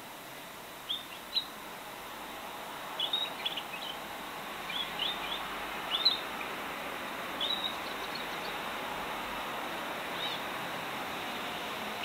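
Pet birds chirping: short, high chirps in scattered clusters every second or two, over a steady hiss.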